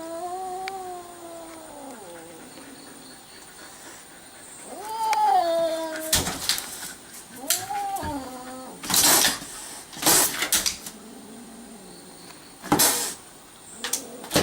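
A cat yowling in three long, drawn-out wails, followed by several short, harsh, noisy bursts.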